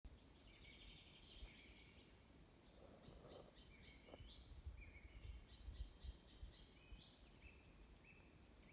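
Faint songbirds chirping in repeated short phrases, over a low, uneven rumble.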